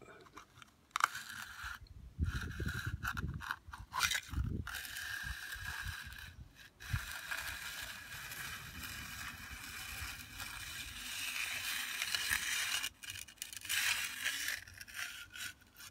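Steel hand edger scraping along the edge of fresh, wet concrete at a footpath construction joint. It goes in several strokes with short breaks between them.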